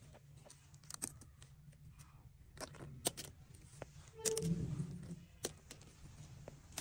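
Plastic toy train track sections clicking and clattering as they are unclipped and set down on a pile: a string of sharp, irregular clicks, with a brief louder low rumble a little past halfway.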